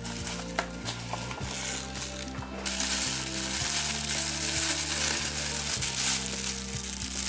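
Thin clear plastic bag crinkling loudly as it is pulled off a figurine, starting about two and a half seconds in, after a few clicks of stiff plastic being handled. Background music plays underneath.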